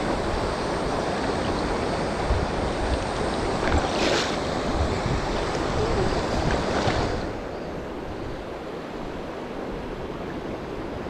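Steady rush of flowing river water with wind on the microphone. Two brief louder surges come around four and seven seconds in, after which it is quieter.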